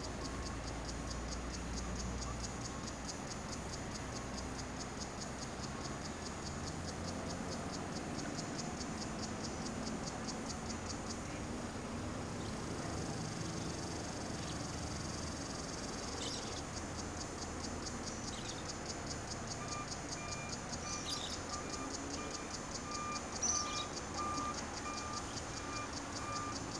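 Insects chirping in a fast, even pulsing rhythm that gives way about halfway to a steady high buzz. From about two-thirds of the way in, a vehicle's reversing beeper beeps at a steady pace, with a few brief high chirps over it.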